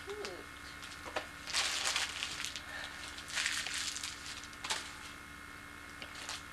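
Gift packaging crinkling in two short bursts, about one and a half and three and a half seconds in, with a few light clicks from handling, over a faint steady hum.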